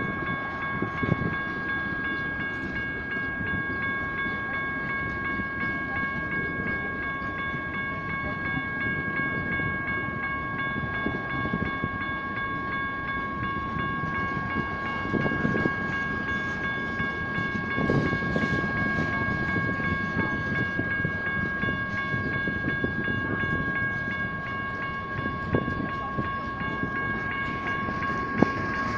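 Freight cars rolling past over a grade crossing: a steady rumble of steel wheels on rail with a few sharp clanks. Over it the crossing signal's General Signals Type 1 electronic bells ring steadily, because the crossing is active.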